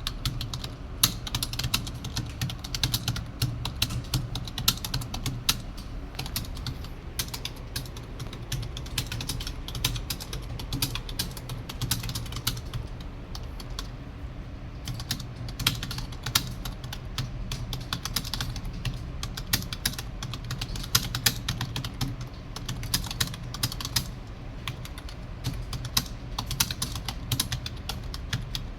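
Fast touch-typing on a computer keyboard: a rapid, continuous run of key clicks with a brief pause about halfway through, over a steady low hum.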